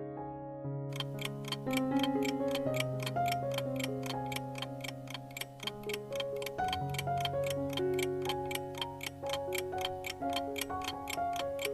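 Countdown-timer clock ticking, fast and even at about four ticks a second, starting about a second in, over soft background music with held piano-like notes.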